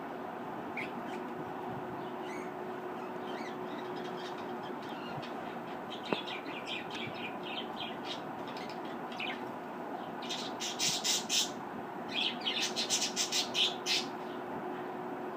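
Pet budgerigars chirping over a steady background hum: scattered faint chirps at first, then two runs of loud, rapid chirps and squawks near the end.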